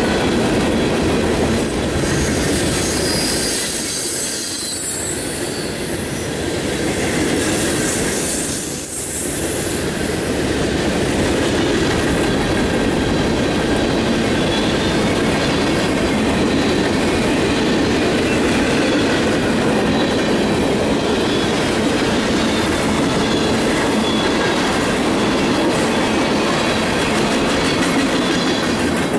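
Freight train cars rolling past close by, steel wheels running on the rails with a steady high squeal over the rumble.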